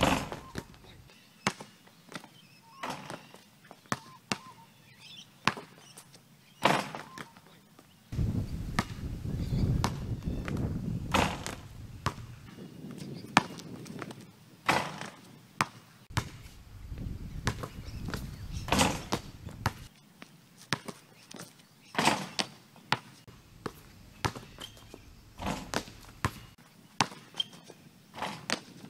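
Basketball bouncing on a concrete court and hitting the hoop during dunks: a string of sharp thuds a second or two apart. A low rumble comes in twice for a few seconds.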